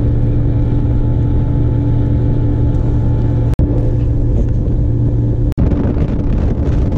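Boat's outboard motor running steadily at speed, a constant engine drone over rushing hull and water noise. It breaks off for an instant twice, about three and a half and five and a half seconds in.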